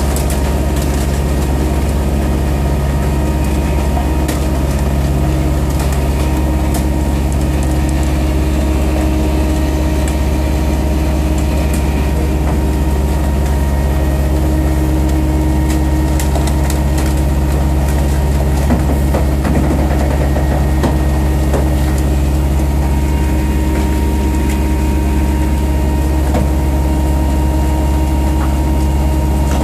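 Ecotecnica Orca S5250P car baler running steadily, a deep, even engine hum that holds one pitch, with scattered light clicks.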